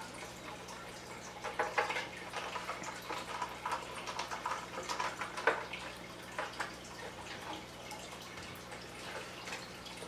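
Small screwdriver driving the cover screws back into an NVR security-recorder case: a run of light clicks and short scrapes as the screw turns and the tip slips in the screw head, busiest in the first half and sparser near the end.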